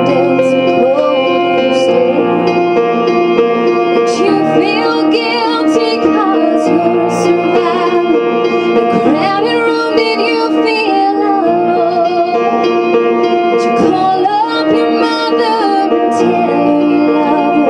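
Music: a slow song, a wavering sung melody in several phrases over steady held chords.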